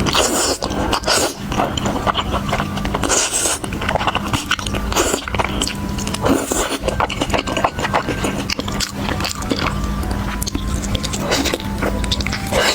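Close-miked eating sounds: chewing and biting into food, a fast run of short clicks, over background music.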